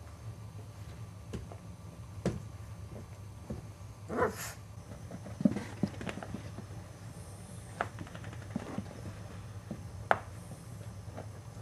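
Boxer puppies playing on carpet: scattered soft taps, knocks and scuffles of paws and bodies. One short puppy yelp comes about four seconds in, and there are a couple of louder sharp knocks later on.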